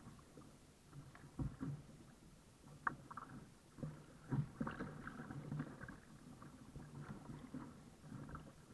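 Double-bladed kayak paddle stroking through choppy water: irregular splashes as the blades dip and pull, with water slapping and rushing along the hull and an occasional sharp knock, one about three seconds in.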